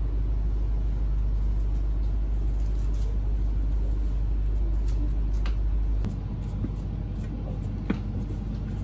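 Steady low machinery hum with a few faint clicks. The hum drops in level and changes character about six seconds in.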